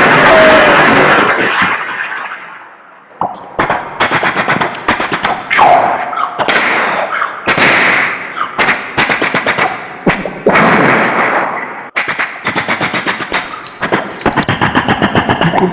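Vocal mimicry of battle sounds made with the mouth: a loud rushing blast that fades away over the first two seconds or so, then repeated rattling bursts of imitated machine-gun fire, many strokes a second, fastest near the end.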